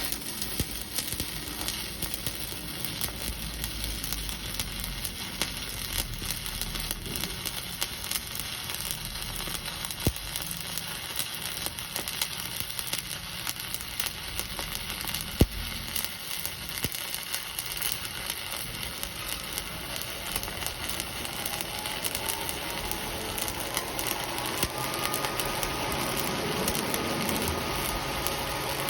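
Electric welding arc burning steadily with a continuous crackling sizzle.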